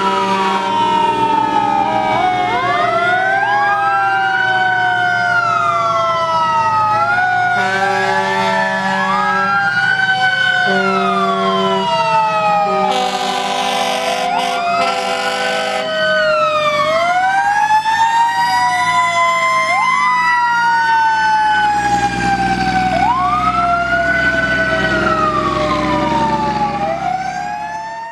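Several fire-engine sirens wailing at once and overlapping, each rising quickly and then falling slowly. Long steady horn blasts sound over them now and then, the longest about halfway through.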